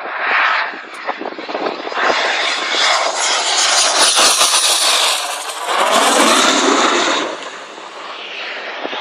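Red Arrows BAE Hawk T1 jet on landing approach passing low overhead: the jet noise builds about two seconds in, stays loud for several seconds with a falling sweep in pitch as it goes over, then eases off near the end.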